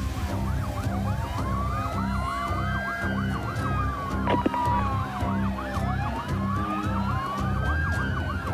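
Emergency vehicle sirens sounding together: a slow wail rising and falling every few seconds overlaps a fast repeating yelp, over a low rumble.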